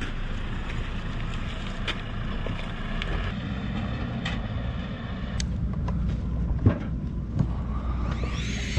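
Wind buffeting the microphone over a low, steady rumble, with a few short knocks.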